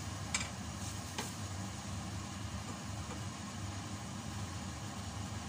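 Wooden spatula stirring chicken in a stainless steel pot of simmering adobo sauce, with two light knocks against the pot about a third of a second and a second in. A steady low hum runs underneath.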